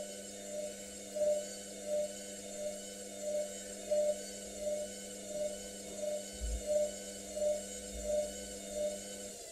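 Hotpoint Ariston Aqualtis washing machine on its wool programme, its drum motor running with a steady whine and a soft regular pulse about one and a half times a second as the drum turns the wet load. The motor stops just before the end.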